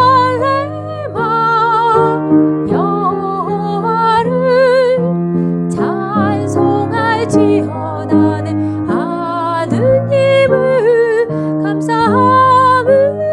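A woman singing a worship song, holding notes with vibrato, over sustained piano chords.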